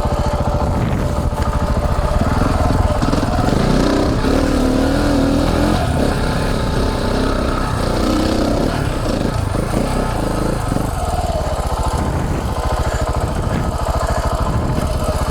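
Single-cylinder dual-sport motorcycle engine idling steadily.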